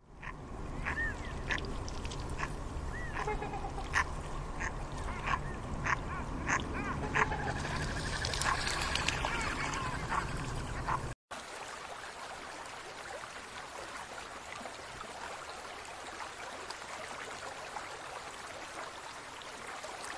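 Ducks calling: a string of short quacking calls over a rough background. About eleven seconds in, the sound cuts to a steady, quieter noise without calls.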